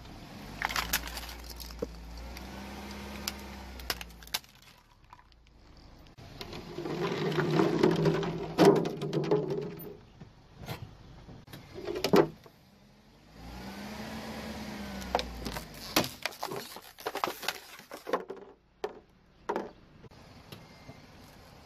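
A car tyre rolling slowly over hard plastic toys and a hard plastic bottle on asphalt, crushing them with sharp cracks and crunching. Between the crushes the car's engine hums, its pitch rising and falling as the car creeps forward. The loudest crushing comes about eight to nine seconds in.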